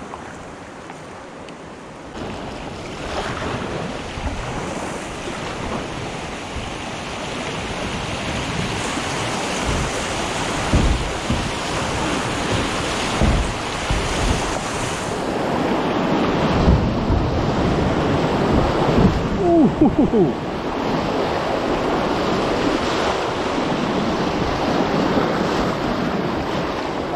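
Whitewater rapids rushing and splashing around a kayak as it runs down through them, with wind on the microphone. The rush builds about two seconds in, with low thumps of water against the hull through the middle.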